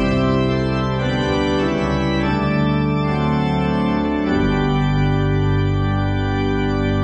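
Slow organ music played as television closedown music: long held chords, moving to a new chord with a fuller bass about four seconds in.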